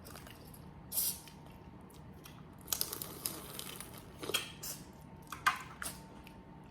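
Boiled crawfish being eaten by hand: short wet squishes and cracks of shell, in scattered bursts with a cluster about three seconds in.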